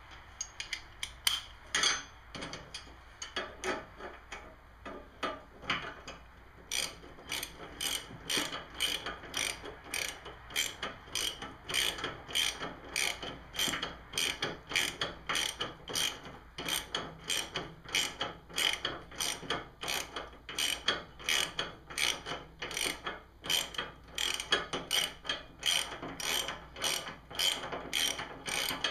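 Socket ratchet with an extension tightening a 7/16 nut onto a snowblower shear pin, its pawl clicking. The clicks come in short, uneven spurts at first, then settle into a steady rhythm of about two to three strokes a second from about seven seconds in.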